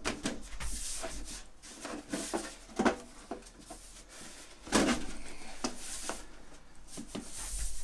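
Thin aluminium fuel-tank sheet being flexed and bent by hand at its corners on a workbench: scattered light knocks and rubbing of the sheet metal, with a louder knock just before five seconds in.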